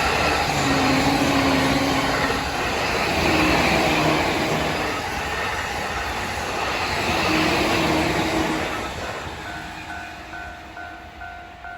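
A Tokaido Line train passing a level crossing at speed: a loud rushing rumble of wheels on rail that fades away from about nine seconds in. As it fades, the crossing's alarm bell comes through, ringing at an even pace of about two strokes a second.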